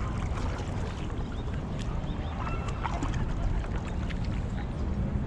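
Water splashing and lapping around a paddle board, over a steady low rumble on the microphone, with scattered short clicks and a few short high chirps.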